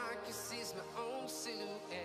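Background music: a song with a singing voice over a steady instrumental accompaniment.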